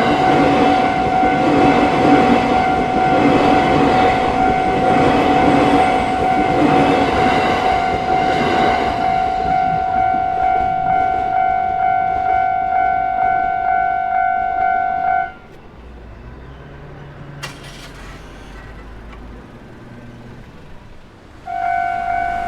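Japanese railway level-crossing warning bell ringing in an even, pulsing rhythm while a train rumbles over the crossing on the JR Togane Line. About two-thirds of the way through the bell cuts off, leaving a low hum. Near the end it starts ringing again.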